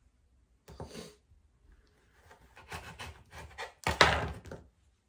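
A kitchen knife cutting lemon slices on a countertop: a light knock about a second in, a run of small taps and scrapes, then a sharp knock of the blade on the counter about four seconds in, the loudest sound.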